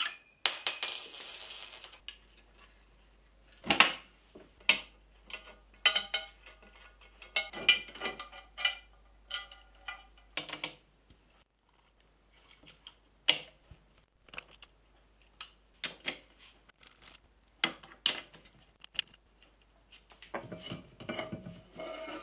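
Scattered metallic clicks, clinks and knocks of hand tools on bolts and steel parts as a Kity 636 jointer/planer is taken apart, with a ringing metallic clatter about half a second in. Near the end a longer, rougher stretch of handling noise as the aluminium table is lifted off the machine.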